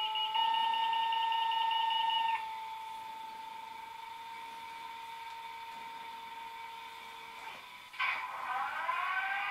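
Electronic sound from an HO-scale model diesel locomotive's onboard sound system, played through its small speaker: steady whining tones that drop in level about two and a half seconds in, then about eight seconds in a sudden louder sound whose pitch rises, like a diesel engine starting up.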